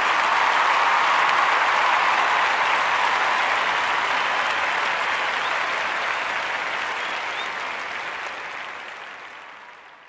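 A crowd applauding, dense and steady, fading out over the last few seconds.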